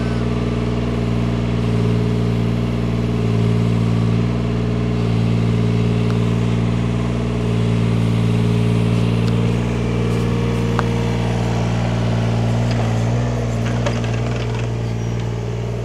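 Yanmar ViO17 mini excavator's three-cylinder diesel running steadily while it digs a trench. Its level swells and eases every couple of seconds as the boom and bucket take hydraulic load.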